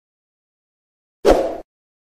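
Silence, then about a second and a quarter in, one short, sudden noisy sound effect lasting under half a second, from an animated subscribe-button graphic.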